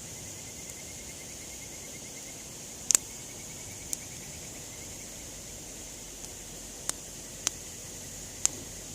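Wood campfire crackling: about half a dozen sharp, separate pops over a steady hiss, the loudest a quick double pop about three seconds in.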